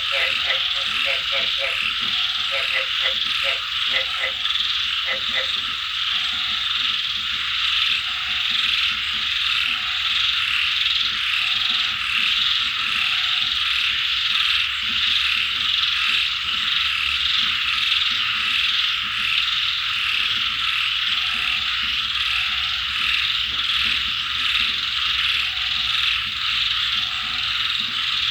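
Frogs croaking over a steady wash of rain and a chorus of insects. A run of quick croaks in the first five seconds gives way to single short calls every second or two.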